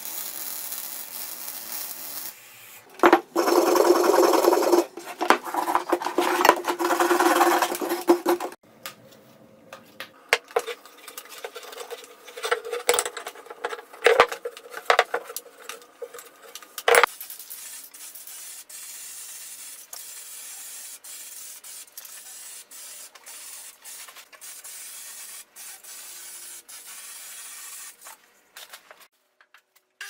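Arc welding crackle and hiss on a steel tube for about two seconds, then a loud rasping, grinding noise on metal for about five seconds. After that come irregular rubbing strokes and clanks on the steel tubes, which fade to a low steady background with scattered clicks.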